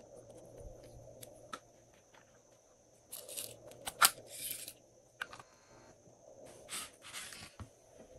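Small plastic containers of slime add-ins being handled and opened: scattered light clicks, then rasping, tearing-like scrapes about three seconds in, with one sharp snap at about four seconds, the loudest sound, and more scraping near seven seconds.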